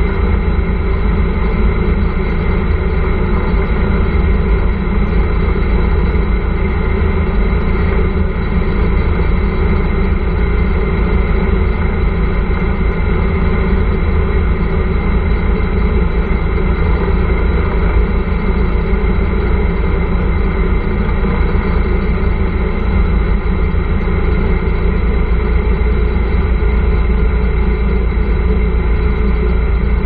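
Trike's motorcycle engine running at a steady, unchanging pitch, loud and close.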